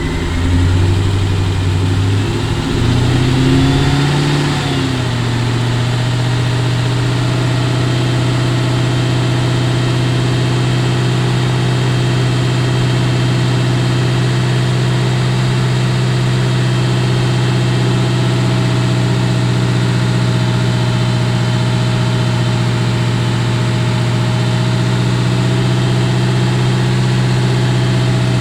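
Cammed 1999 Ford Mustang SVT Cobra's 4.6-litre DOHC V8, running for the first time on its new camshafts. Its speed rises over the first few seconds with a short blip around four seconds, then it settles into a steady idle.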